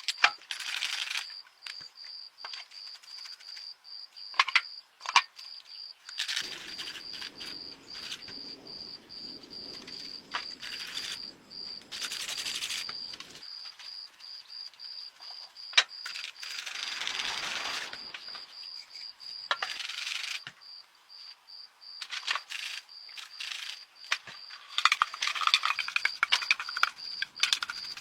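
Metal parts and hand tools clinking, knocking and rattling as they are handled, in scattered irregular strokes, over a steady high-pitched whine.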